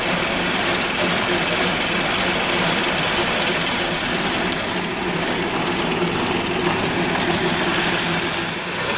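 Cranberry elevator running steadily, an engine hum under a constant rush of machinery noise as it carries the harvested berries up into a truck.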